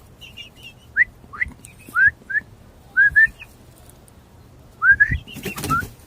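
Short, high, rising whistle-like calls, about ten of them, many in quick pairs. A brief rustling burst comes about five and a half seconds in.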